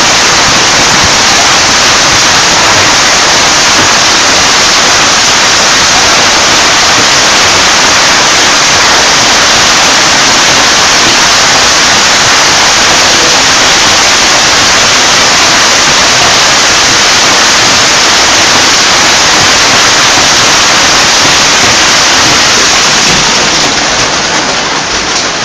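Heavy hailstorm: a loud, dense, unbroken clatter of hailstones pouring down, easing slightly near the end.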